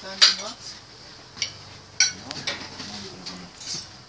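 Metal serving spoon and cutlery clinking against a metal pot and plates: several sharp clinks, the loudest about a quarter second in.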